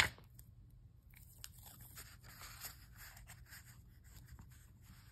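Washi tape being peeled off its roll and pressed onto a notebook page: faint, scattered crackling and rustling, after one sharp tap at the start.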